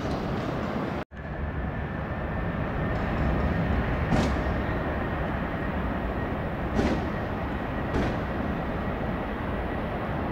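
Distant rumble of an Airbus A330 jet airliner's engines as it lands and rolls out along the runway, with a faint steady whine. The sound cuts out briefly about a second in, and a few short sharp noises come through later.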